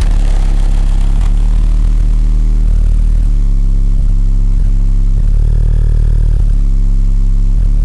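Two 12-inch Ground Zero subwoofers in a 1991 Honda Civic hatchback playing loud, bass-heavy music, the bass notes changing every second or so over a steady deep low end.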